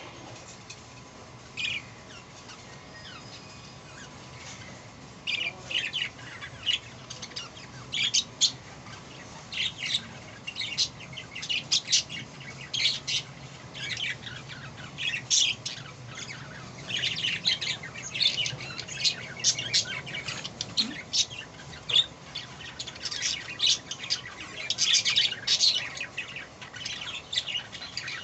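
Budgerigar chicks chirping and squawking in short, sharp calls. The calls are sparse at first and thicken into an almost constant chatter after about five seconds.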